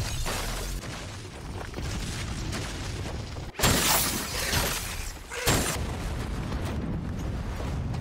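Ice shattering and breaking apart over a deep booming rumble, with two sudden loud crashes about three and a half and five and a half seconds in.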